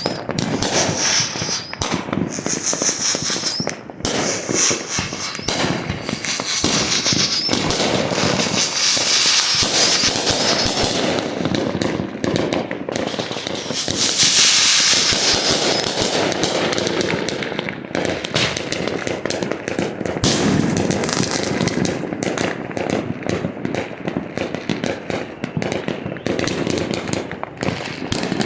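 A continuous barrage of fireworks and firecrackers going off at once, a dense mix of bangs and crackling with no let-up, loudest about halfway through.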